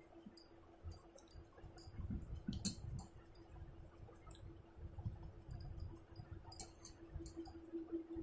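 A person eating rice and fish curry, with wet chewing and many small mouth clicks and smacks, over a steady low hum.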